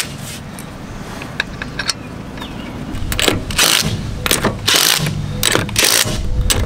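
Cordless impact tool running lug nuts onto a car wheel in several short bursts, starting about halfway through, with light clicks of the socket and nuts before them.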